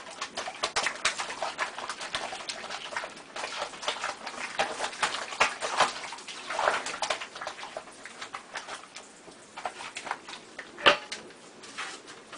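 Cat pawing in a steel sink full of soapy dishwater: quick, repeated splashing and slapping of water, busiest for the first half, with one louder slap near the end.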